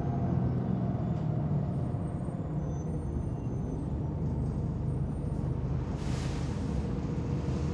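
Inside a moving bus: a heavy, low engine and road rumble. A brief hiss of air cuts in about six seconds in.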